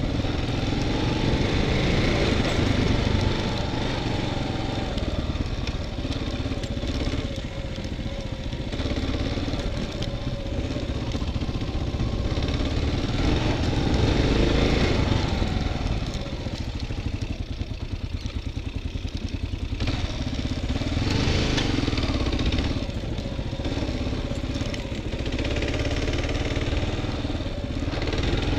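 Dual-sport motorcycle engine running while riding, the engine note rising and falling with the throttle and easing off briefly a little past the middle.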